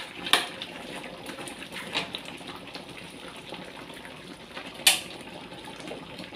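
Metal spatula stirring and clacking against a large aluminium wok of simmering chicken in creamy sauce, with the sauce bubbling steadily. A few sharp clacks of metal on metal, the loudest about five seconds in.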